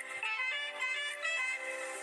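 Instrumental background music with a melody of short, changing notes.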